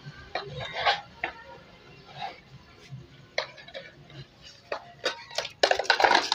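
Scattered light clicks and scuffs of feet on a concrete floor, a dog's claws and a man's flip-flops, as the two dodge around each other, with a quick cluster of scuffs near the end.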